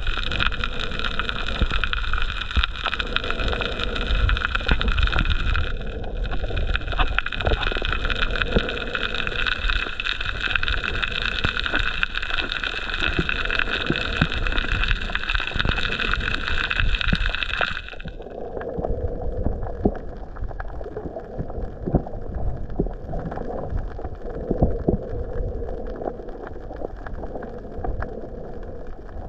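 Underwater sound picked up by a camera held below the surface: a muffled low rumble with scattered small crackles and gurgles, under a steady high whine that cuts off suddenly about two-thirds of the way through.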